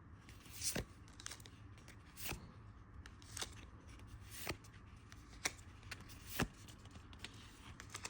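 One Piece trading cards being flipped through one at a time, a short faint swish or snap of card on card about once a second.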